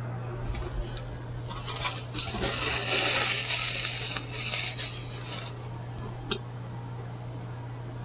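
Paper sandwich wrapper crinkling for about three seconds, with a few sharp clicks before it and a single click later. A steady low electrical hum runs underneath.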